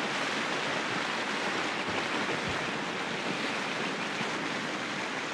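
Heavy rain falling steadily, a dense, even hiss of water.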